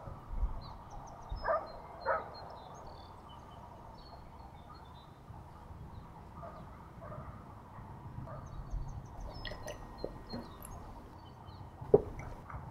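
Small birds chirping in the background while a spoon clinks twice against a ceramic cereal bowl near the start. Near the end a ceramic mug is set down on the wooden table with one sharp knock.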